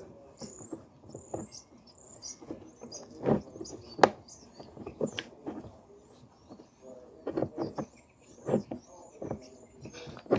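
Irregular clicks, taps and knocks of plastic camera parts and accessories being handled and fitted, the sharpest knock about four seconds in.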